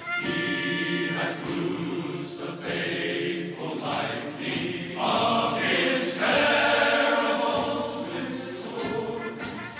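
Music: a choir singing a gospel hymn.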